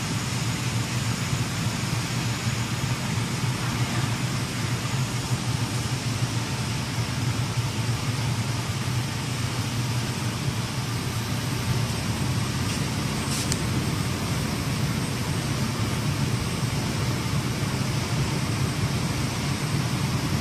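Steady low hum of running production-line machinery, the motors and drives of a roller-conveyor assembly line in a large factory hall. A short high hiss cuts in briefly about 13 seconds in.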